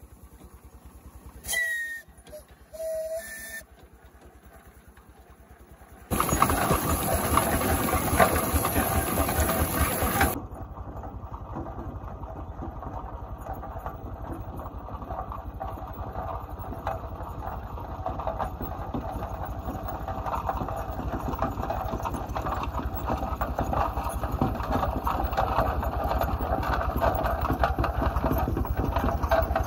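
Two short toots on the steam whistle of a half-scale 65 HP Case steam traction engine, then a few seconds of loud rushing noise. After that the engine runs steadily as it drives, growing louder as it comes closer.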